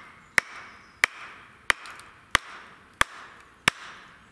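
Wooden mallet striking the back of a Gränsfors Bruks wildlife hatchet's head at a steady pace, sharp knocks about three every two seconds, driving the blade down into an upright log to start splitting it (batoning).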